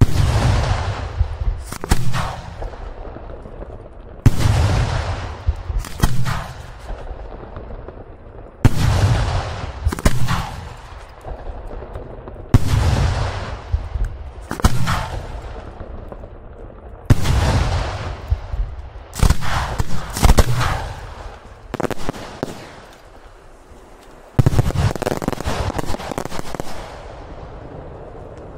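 Aerial firework shells (Italian 'bombe') launched one after another from ground mortars and bursting overhead: a series of loud bangs about every two seconds, each followed by a rolling echo.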